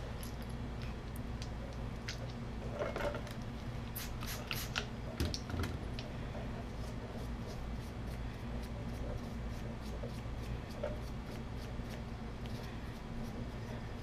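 Rag rubbing and small tool scrapes and clicks as old grease is cleaned out of a motorcycle wheel hub, with a cluster of clicks about four to five seconds in, over a steady low hum.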